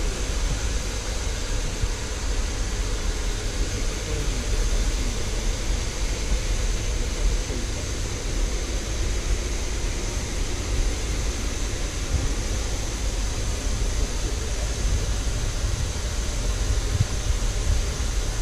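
Steam locomotive venting steam with a steady hiss, with a low rumble underneath.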